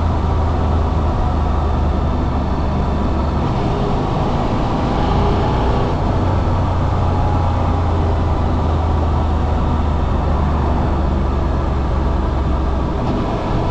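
Suzuki V-Strom 800RE's 776 cc parallel-twin engine running steadily, its deep low note shifting slightly about a second in and again near the end.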